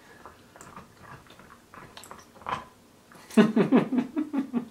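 A man bursting into laughter about three seconds in, loud quick pulses of laughing for about a second, after a quiet stretch with a few faint mouth and voice sounds.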